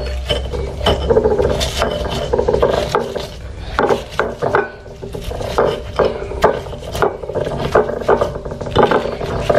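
Stone pestle grinding and crushing fried chilies, garlic and shallots in a stone mortar (Indonesian cobek and ulekan) to make sambal: repeated, uneven rasping and knocking strokes of stone on stone, about two a second.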